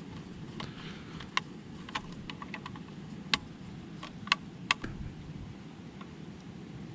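Small screwdriver clicking against the terminal screws and plastic case of a solar charge controller as its wires are fastened: a scatter of sharp clicks and ticks, the loudest few between about three and five seconds in, over a steady low rumble.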